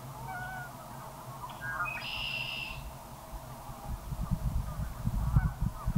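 Geese honking, with a brighter whistled bird call about two seconds in. An uneven low rumble builds in the second half.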